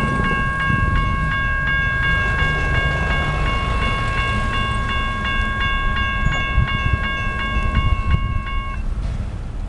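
Railroad crossing bell ringing in rapid, even strokes while the crossing gates lower, stopping near the end. A low rumble runs underneath.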